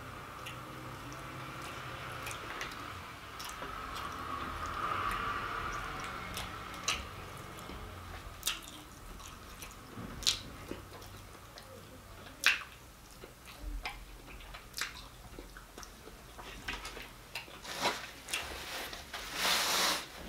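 Close-up eating sounds of someone chewing fried fish: wet mouth noises and scattered sharp clicks and smacks, with a few louder rustles near the end.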